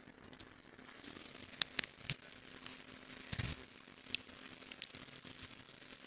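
Faint scattered clicks and light rattles of a wire fridge shelf being handled and slotted into place, with one louder knock about three and a half seconds in.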